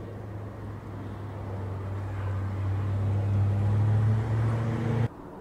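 Narrow-body twin-jet airliner passing overhead: a low engine rumble and droning hum that grows steadily louder, then cuts off suddenly about five seconds in.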